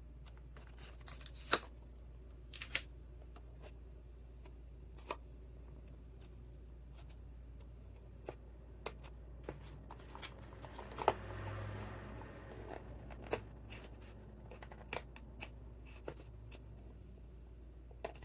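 Small product box and its packaging being handled and opened by hand: scattered light clicks and taps, with a short rustling scrape about 11 seconds in.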